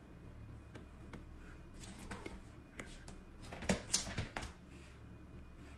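Light clicks and taps from a cat moving about on a hardwood floor, clustering between about two and four and a half seconds in, over a steady low hum.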